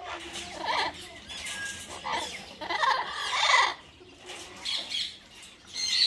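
Caged aviary birds calling, a run of separate squawks and calls of half a second to a second each, the loudest a little past the middle.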